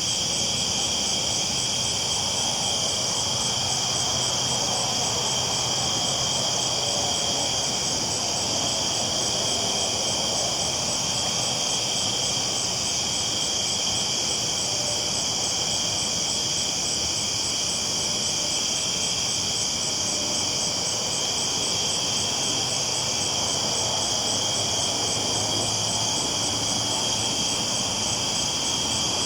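Steady night chorus of crickets, a dense even trill, over a low rumble of a train rolling along the tracks.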